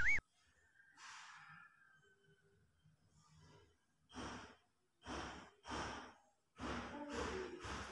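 Heavy sighing breaths about once a second from about four seconds in, the later ones with a faint voiced groan, from a person whose upper back is being pressed in a massage. A loud warbling chime-like tone cuts off right at the start.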